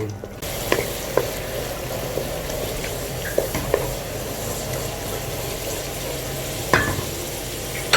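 Masala with freshly added yogurt sizzling in hot oil in a karahi while it is stirred; the sizzle starts suddenly about half a second in, and a spoon knocks and scrapes against the pan several times.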